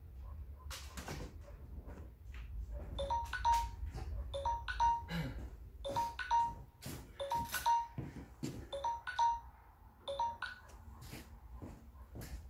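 Footsteps and knocks on a wooden deck. From about three seconds in there are short, clear ringing tones in pairs, about one pair a second, ending near the end.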